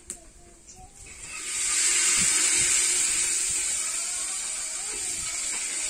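Loud sizzling hiss of hot food cooking over a wood fire. It starts about a second in, swells quickly and then slowly fades.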